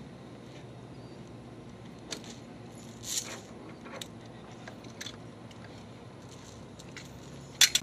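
Steel tie-down chain and its tensioner clinking as they are handled: a few light metallic clinks spread out, then two sharp clicks near the end.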